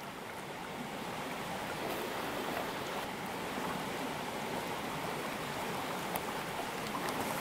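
Limestone stream water flowing steadily, an even rushing with no distinct splashes.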